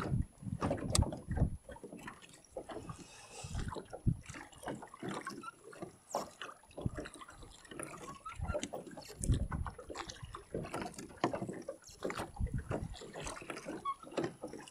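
Oars dipping and splashing as a small rowboat is rowed, with water sloshing against the hull.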